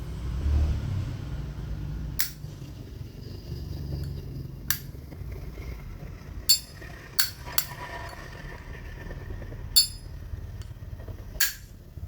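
Lid of a 1966 Zippo lighter being flicked open and snapped shut, with about seven sharp metallic clicks, each ringing briefly, spread a second or two apart over a low steady hum.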